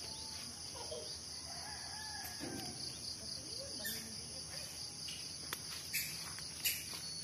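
Steady high-pitched drone of insects such as crickets, with a faint rooster crowing about two seconds in. A few sharp clicks come near the end.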